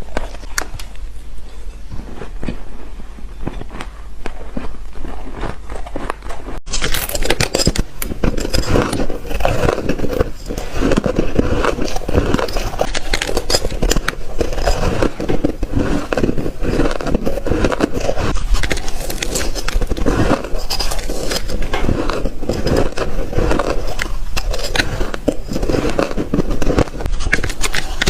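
Close-miked biting and chewing of spoonfuls of shaved ice: a dense, continuous run of crackling crunches. An abrupt cut comes about six and a half seconds in, after which the crunching is louder.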